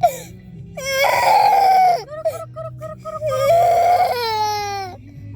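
Young child crying: a long wail, then about five short sobbing gasps, then a second long wail.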